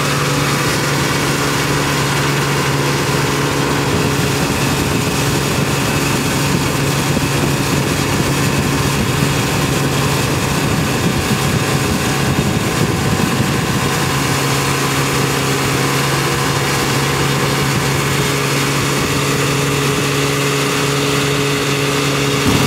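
Tow boat's engine running steadily at towing speed, a constant hum over a hiss of wind and water.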